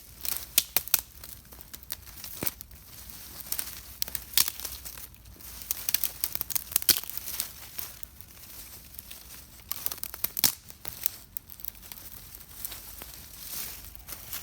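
Wood fire crackling: irregular sharp pops and snaps over a faint hiss, with louder clusters of pops every few seconds.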